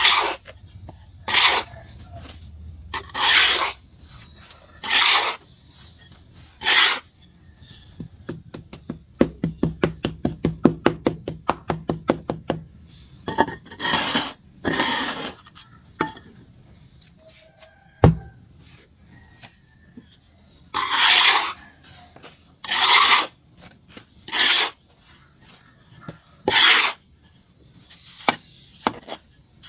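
A piece of charcoal being scraped and rubbed into shape, in separate rasping strokes. A quick run of light taps comes near the middle, and one sharp knock a little later.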